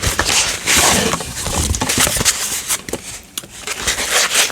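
Crinkling and rustling of blind-box packaging being handled and unwrapped by hand: a dense run of crackles and small clicks.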